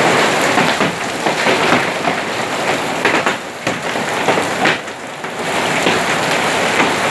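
Hailstones and heavy rain pelting hard surfaces: a loud, dense clatter of countless small impacts over a steady downpour, with some stones as large as table-tennis balls. It eases briefly about two-thirds of the way through.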